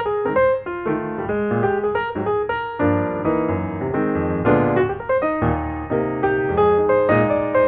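Background piano music, a steady flow of notes and chords.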